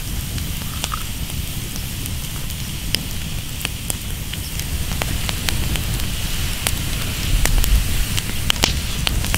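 Open wood fire of sticks and branches burning, crackling with scattered sharp pops, more frequent in the second half, over a steady low rumble.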